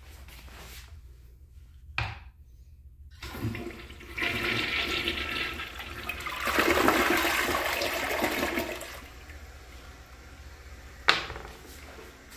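A Proflo Jerrit tank-type toilet flushing. A click about two seconds in, then a loud rush of water swirling and draining down the bowl for about five seconds, then quieter running water. A second sharp click comes near the end.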